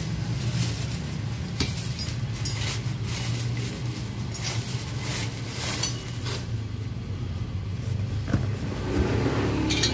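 Bubble wrap crinkling and rustling as it is pulled off a stainless-steel motorcycle exhaust header, then one sharp click about eight seconds in. A steady low hum runs underneath throughout.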